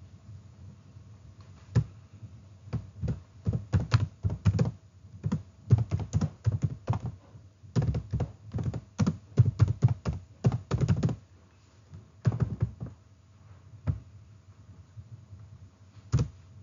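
Computer keyboard typing in quick bursts of keystrokes for most of the first eleven seconds, followed by a few single key clicks spaced out near the end.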